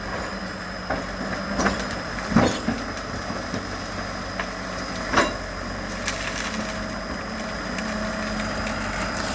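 Excavator's diesel engine running steadily under a few sharp cracks and snaps of wood breaking as trees are pushed over, the loudest about two and a half seconds in and again about five seconds in.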